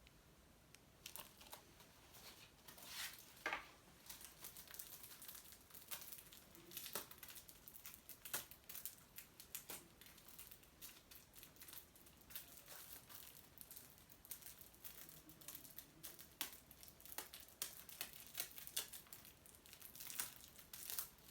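Plastic shrink wrap being torn and peeled off a Blu-ray case: faint, irregular crinkling and crackling.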